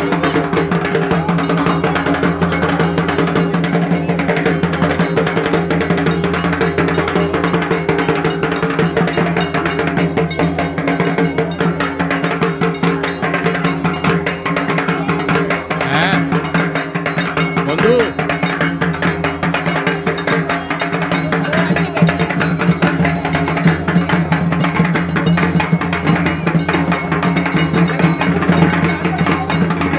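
Dhak, the large Bengali barrel drum, beaten with sticks in a quick, continuous rhythm, with voices underneath.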